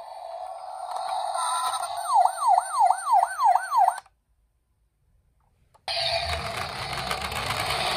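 Electronic siren of a toy emergency-vehicle minicar: a steady tone that switches to a fast yelp of about three rising-and-falling sweeps a second, then cuts off suddenly. After about two seconds of silence the siren starts again together with a low rumbling noise.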